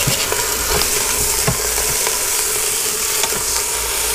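A beef roast and chopped garlic sizzling steadily in hot oil in the nonstick inner pot of a Cuisinart electric pressure cooker, with a few light knocks.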